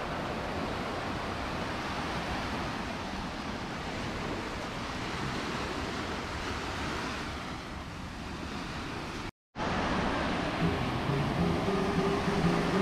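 Surf washing onto a beach: a steady rush of waves. It cuts out suddenly about nine seconds in, and after a brief gap music starts up over the surf near the end.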